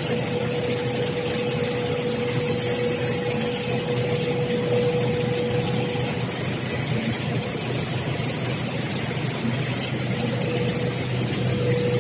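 A4 paper slitting and sheet-cutting line running steadily: a constant machine hum and hiss with a steady mid-pitched whine.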